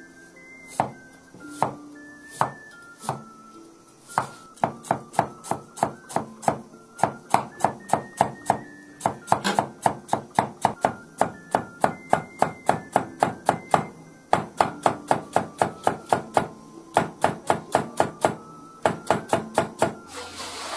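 Cleaver slicing a vegetable into thin strips on a wooden chopping board. A few spaced strokes at first, then from about four seconds in a fast, steady run of about three to four knocks a second, with a few brief pauses.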